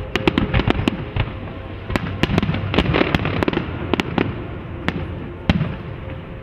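Fireworks display: aerial shells bursting in a rapid, irregular string of bangs and pops, with one louder bang about five and a half seconds in and the bangs thinning out near the end.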